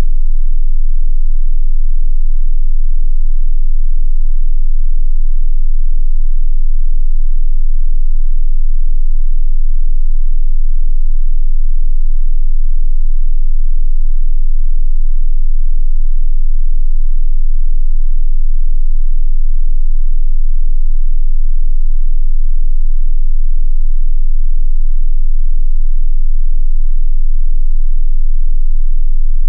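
Loud, steady 18.98 Hz sine tone: infrasound at the so-called ghost frequency, pitched at the bottom edge of human hearing, so it is felt as much as heard.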